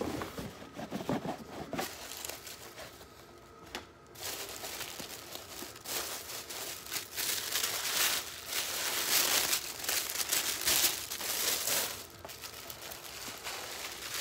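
Paper wrapping inside a gift box crinkling and rustling as hands fold it back and lift a sweater out, in repeated bursts that are loudest in the middle. A few soft knocks and rustles of the cardboard box being handled come first.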